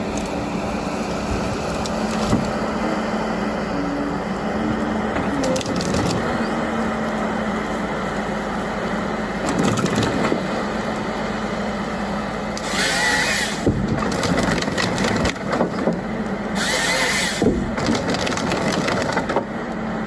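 Wood cracking, splintering and being crushed by a heavy forestry machine, over the steady hum of its running engine. The crackling surges louder twice, about two-thirds of the way through and again near the end.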